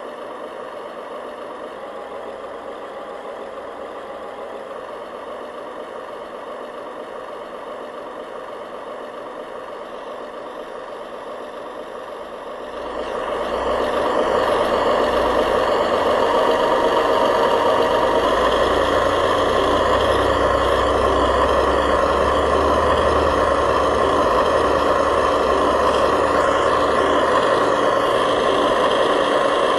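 Remote-control model truck or construction machine running with a steady engine-like sound, moderate at first and then much louder and fuller from a little under halfway through.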